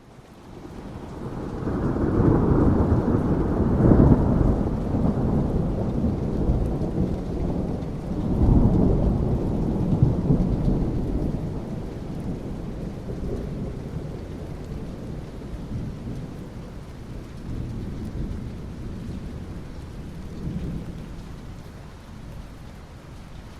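Thunder rumbling over steady rain: a deep roll builds about a second in, peaks twice, the second time near the middle, then slowly dies away, leaving the hiss of rain.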